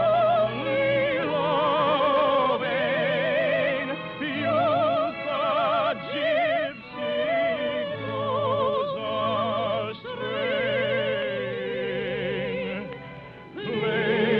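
Operetta music from an old radio recording: an orchestra holds low notes under a high melody of long notes with wide vibrato, phrase by phrase.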